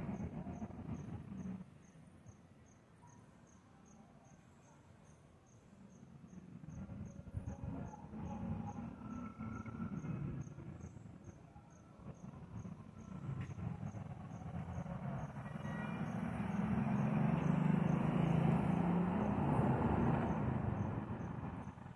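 A cricket chirping steadily, about three chirps a second, over the low rolling rumble of distant thunder that swells and fades several times and is loudest in the last third.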